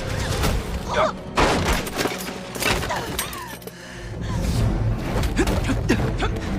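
Action-scene sound effects: a dense run of sharp hits, crashes and thuds over background music.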